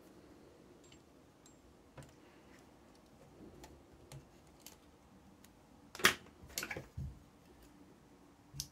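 Light clicks and taps of a small screwdriver and fingers against the metal flywheels and parts of a cassette deck mechanism while a rubber drive belt is worked into place, with a cluster of sharper clicks and clatters about six seconds in and another just before the end.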